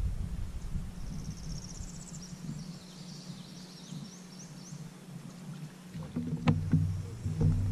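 Quiet ambience on a bass boat: a low rumble of water and wind against the hull and microphone, which fades for a few seconds in the middle and comes back. About a second in, a faint bird song is heard, a quick trill and then a few short chirps. Near the end come a couple of light knocks.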